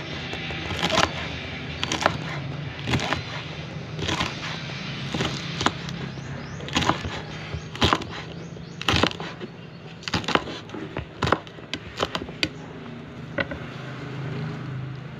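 Kitchen knife chopping green beans on a wooden chopping board: sharp knocks about once a second, coming quicker later, that stop shortly before the end. A steady low hum runs underneath.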